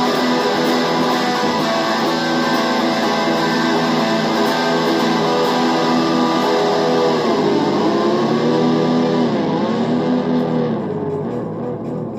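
Electric guitar playing a sustained instrumental intro, with the pitch of the held notes bending down and back up twice past the middle.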